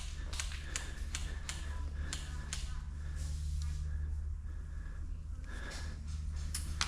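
Sharp, single cracks of airsoft guns firing, several about half a second apart, then a pause of a few seconds and one more crack near the end, over a steady low rumble.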